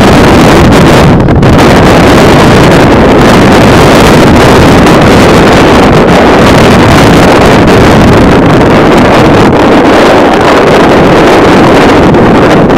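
Wind blowing across the camera's microphone, a loud, steady noise that masks other sounds.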